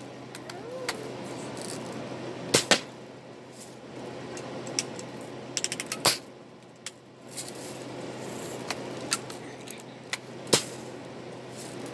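A BB gun being fired: sharp snaps, a pair about two and a half seconds in, another near six seconds and one more near ten and a half, with lighter clicks of handling and cocking between them.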